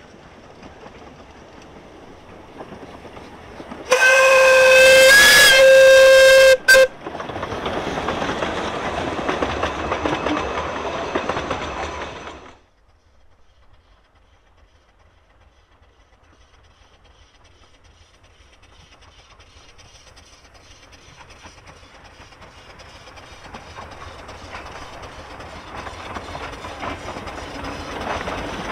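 Steam whistle of the narrow-gauge locomotive Brown Bear, a new-build replica of a Bagnall engine, blown about four seconds in: one steady blast of some two and a half seconds, then a short toot. The small steam train then runs past, its exhaust and wheels on the rails loud until the sound cuts off abruptly. Later the train draws near again, growing louder toward the end.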